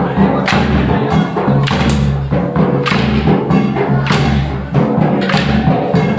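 Gair dance music: a dhol drum beating a steady rhythm with sharp clacks of wooden dance sticks struck together, over a low sustained hum of tones.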